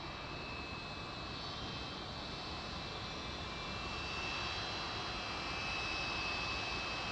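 Steady jet airliner noise: an even rush with a few faint high whining tones, slowly growing louder.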